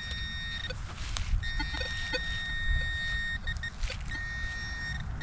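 Metal detector sounding a steady high target tone three times, held about a second, two seconds and a second, with a few small knocks in between: the detector signalling metal close by as the target is pinpointed.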